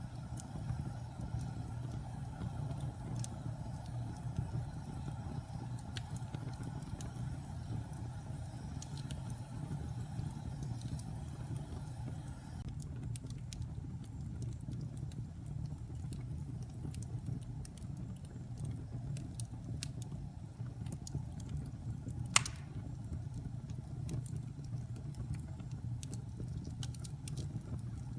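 Wood fire burning in a fireplace: a steady low rumble of flames with scattered small crackles, and one sharp, louder pop late on.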